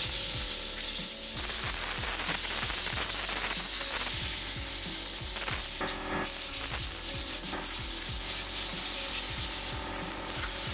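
Compressed-air blow gun blasting dust and dirt out of a vintage PC power supply's metal casing: a steady hiss of the air jet.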